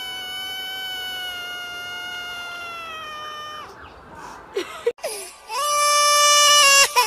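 A grey-and-white kitten gives one long, drawn-out meow, its pitch steady and slightly falling, which stops about three and a half seconds in, then a couple of short chirps. About five seconds in, a louder, high held wail starts and changes pitch in steps.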